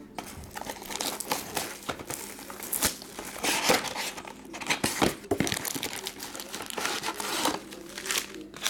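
Plastic shrink wrap crinkling and tearing as it is stripped off a sealed box of trading cards, then the cardboard box being opened and its foil card packs pulled out, in irregular crackles and rustles.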